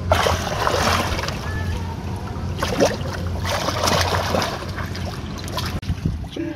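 Sea water splashing and sloshing against the side of a small wooden outrigger boat in several surges, over a steady low hum.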